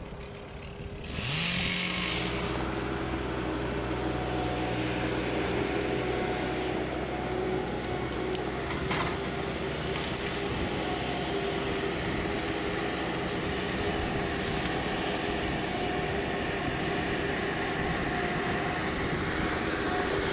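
A steady motor hum with a few held tones, starting about a second in and running evenly.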